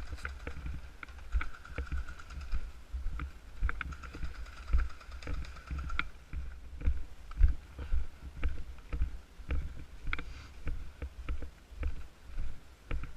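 Footsteps of a player walking at a steady pace, picked up as regular low thuds on a body-worn camera, with rustling and clicks from gear.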